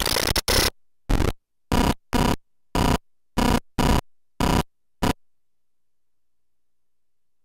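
Hand-built analog noise machine: a harsh wash of noise cuts off just after the start, then about eight short, choppy bursts of static with a buzzy tone, irregularly spaced, stopping about five seconds in.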